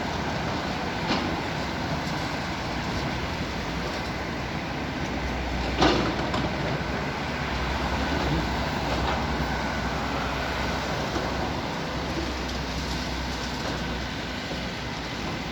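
Train running past with a steady rumble that swells in the middle, with a few clicks and one sharp knock about six seconds in.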